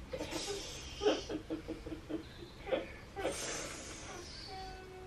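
Faint, short vocal sounds and soft laughter, broken into many brief syllables, with a steady hum-like tone starting near the end.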